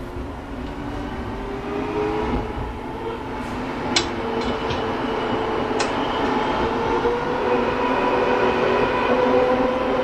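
City street traffic: a steady rumble of vehicles with a faint, slowly rising motor whine, and two sharp clicks about four and six seconds in.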